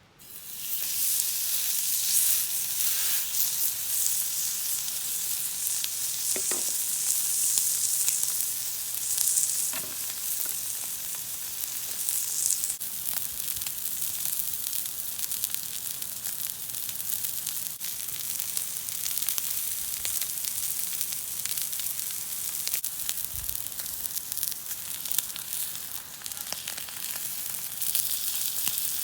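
Food frying in a pan: a steady sizzling hiss thick with fine crackles, cutting in suddenly.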